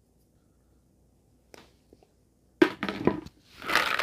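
Hollow plastic capsules clacking and rattling against each other and the bowl as hands stir them. A few sharp knocks come about two and a half seconds in, then a continuous clatter near the end.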